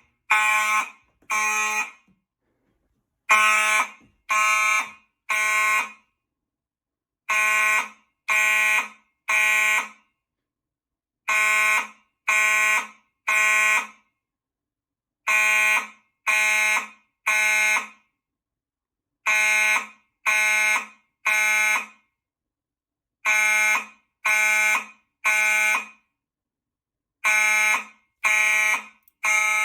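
Gentex fire alarm horn strobes sounding the temporal-three (code 3) evacuation pattern after a pull station was pulled: three short, buzzy horn blasts, a pause, then three more, repeating about every four seconds.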